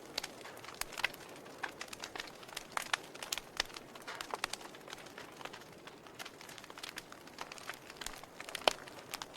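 Wood fire burning in a fireplace, crackling with irregular sharp pops over a soft steady hiss; the loudest pop comes near the end.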